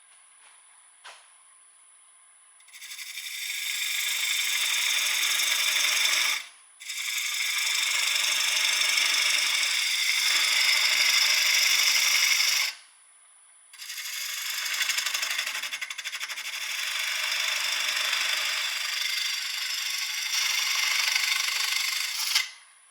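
A bowl gouge cuts into a spinning, very wet maple bowl blank on a wood lathe: three long cutting passes of shearing hiss, each cutting off abruptly. A faint steady high tone sounds in the pauses between cuts.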